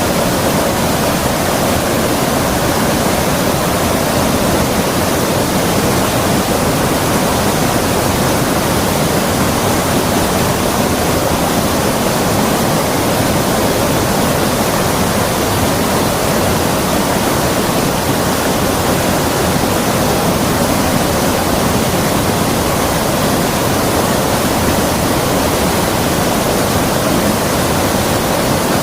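Creek water running steadily: a constant, even rush of flowing water with no change.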